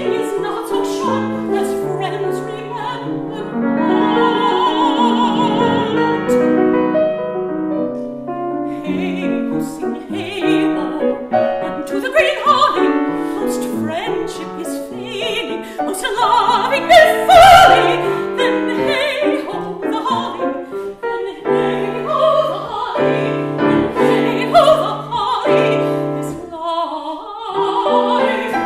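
A classical singer with a wide vibrato singing an art song, accompanied by piano, with long held notes among the phrases.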